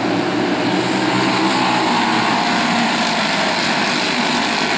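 A pack of racing karts with Briggs & Stratton Animal single-cylinder four-stroke engines running hard together, a steady high buzz. One engine's pitch slides down a little about two seconds in as it passes.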